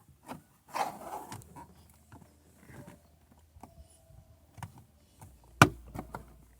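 Screwdriver prying at a car door panel: light scraping and scattered small clicks, with one sharp click near the end.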